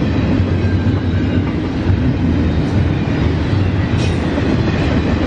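Freight train rolling past close by, a steady loud rumble of steel wheels on the rails.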